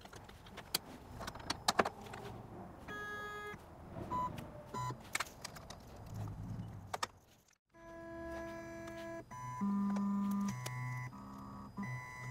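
Clicks and handling taps on the machine's parts, then the Shapeoko 3 XXL's stepper motors whining in steady pitched tones that jump from pitch to pitch as the gantry is jogged into position for zeroing.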